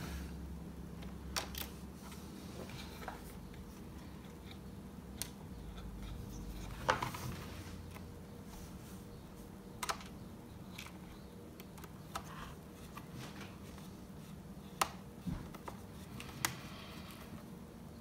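Small screwdriver working a screw into a laptop's bottom case: scattered faint clicks and ticks of the tool and hands on the case, with one louder click about seven seconds in.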